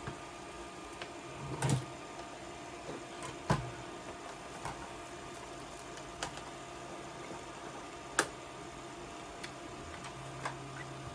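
A few light clicks and knocks of handling the prop blaster and holster, spaced a couple of seconds apart, over a steady low electrical hum.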